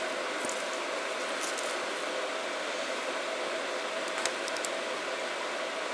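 Steady background hiss with a faint steady hum. About four seconds in, a few light metallic ticks come as a pocket screwdriver works inside a 6.0 Powerstroke injector body.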